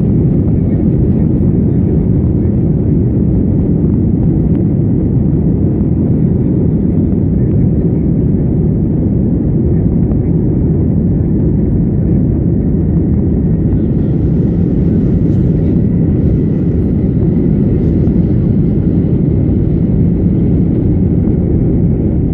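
Jet airliner's engines at takeoff power: a loud, steady low rumble that does not change in level, with a faint steady whine above it and a higher hiss joining for several seconds in the latter part.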